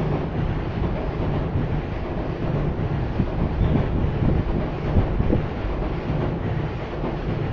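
Steady low rumble of city street ambience from passing vehicles, with a few faint knocks and clatters around the middle.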